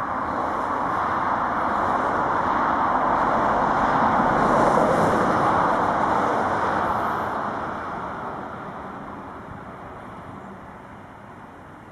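Boeing 737-800's CFM56 jet engines running at taxi power as the airliner turns on the runway before takeoff: a steady rushing noise that swells to a peak about five seconds in and then fades.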